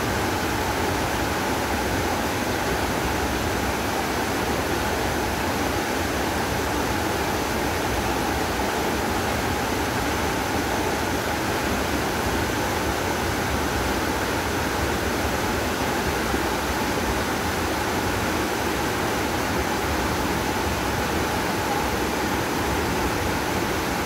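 Nyahururu Falls waterfall pouring: a steady, unbroken rush of falling water.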